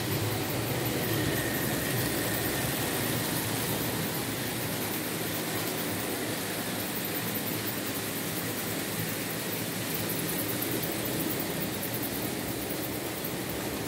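Märklin H0 model trains running on the layout's metal track: a steady rumble of small wheels with the whir of the locomotive motors.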